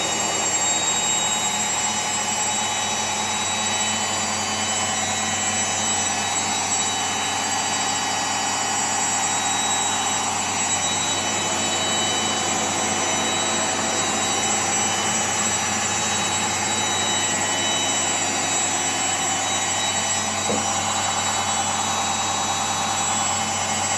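Candy CS4 1061D washing machine on its spin cycle, the drum spinning at a steady high speed with a steady motor whine and high tones, running on freshly replaced drum bearings.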